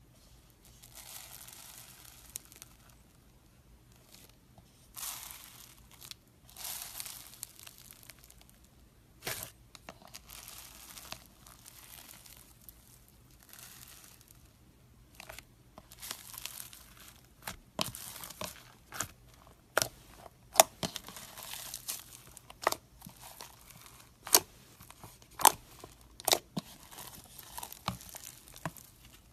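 Foam-bead slime being pressed and stretched by fingers: a crackly crunching of the beads. In the second half come sharp pops, about one a second, as the slime is folded.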